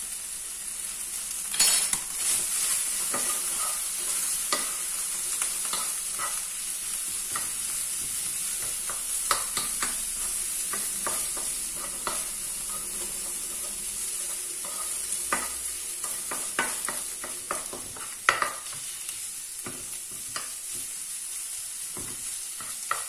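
Pork strips sizzling steadily in hot oil in a nonstick frying pan, stirred with a wooden spoon that scrapes and knocks against the pan at irregular moments, with a sharper knock about two seconds in.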